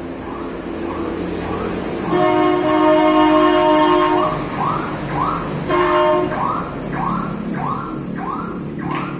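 An alarm-like wail rising and falling about twice a second, with a steady horn-like tone held for about two seconds and sounding again briefly a little later.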